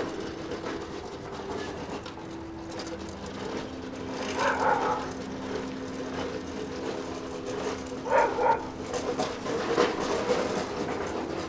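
Soft film score of held low notes that shift pitch a couple of times, with brief louder accents about four and a half and eight seconds in.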